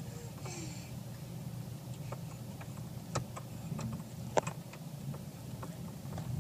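Diesel SUV crawling over a rocky dirt track, heard from inside the cabin: a steady low engine and road rumble with scattered sharp knocks and clicks from stones and the jolting body, the loudest about 3 and 4.5 seconds in.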